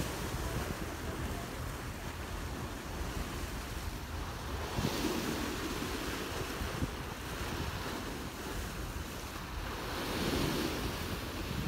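Sea waves surging and washing against the granite shore rocks, with wind buffeting the microphone. The wash swells about five seconds in and again near the end.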